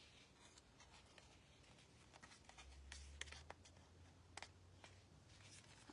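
Near silence, with a few faint clicks and light rustles of paper and card being handled on a craft mat; a faint low hum comes in about two and a half seconds in.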